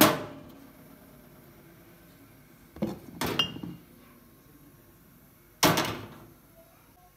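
A metal kadai knocking against a gas stove's pan supports as it is handled and set down on the burner: a knock at the start, a short clatter with a brief metallic ring about three seconds in, and one louder clank at about five and a half seconds.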